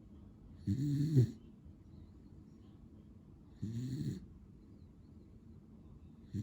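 Beagle snoring in its sleep: short pitched snores about every three seconds, two full ones and a third starting right at the end.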